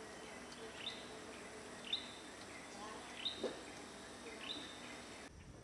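A bird repeating a short high chirp that rises and then holds briefly, about once a second, over a steady background hiss of outdoor ambience, with a soft low knock a little past the middle.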